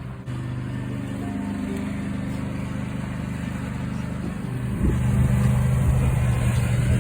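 Plow truck's engine running steadily, then getting louder about two-thirds of the way through as it revs.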